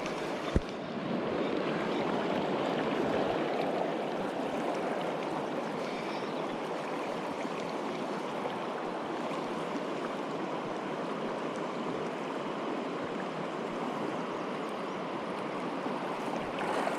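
Mountain river rushing steadily, with one brief knock about half a second in.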